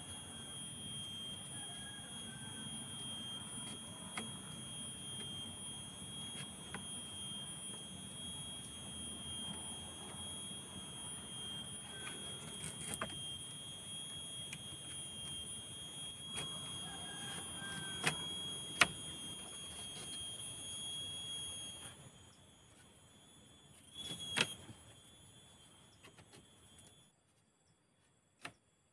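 Thin wooden sticks clicking and knocking against the poles as they are woven into a shelter wall, a few sharp knocks standing out, over a steady high-pitched insect drone. The sound drops away near the end.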